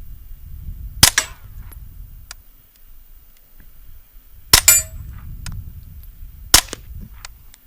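Three single shots from a suppressed Kriss Vector SDP 9mm pistol, about a second in, at about four and a half seconds, and two seconds after that, with fainter clicks between the shots.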